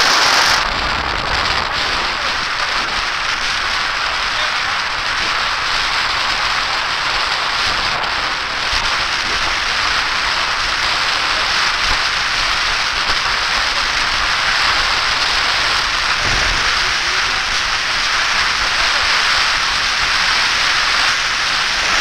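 Steady, loud rushing hiss of wind and water from a motorboat under way.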